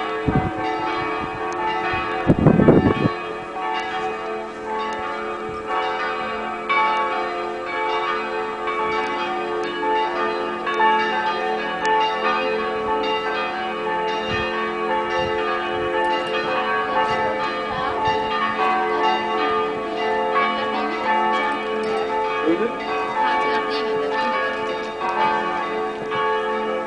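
Several church bells ringing together, with strokes overlapping so their tones keep sounding without a break. A brief low rumble is heard about two and a half seconds in.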